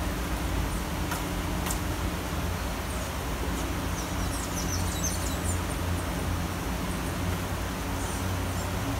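Steady city rain hissing over a low rumble of traffic. A few short, high chirps come through around the middle.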